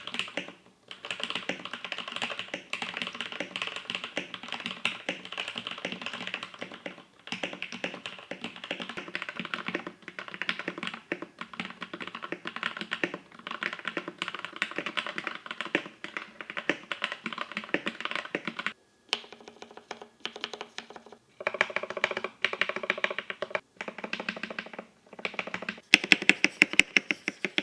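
Typing on a heavy full-size gasket-mount mechanical keyboard with no plate, an aluminium bottom case and factory-lubed Zhuque linear switches. It is a steady run of keystrokes with a brief pause about two-thirds of the way through and louder, sharper strokes near the end. The sound is like striking a solid lump of metal, with almost no hollow ring.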